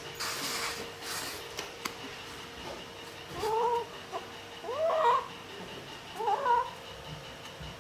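Kitten meowing three times, each cry about half a second long, a second or so apart.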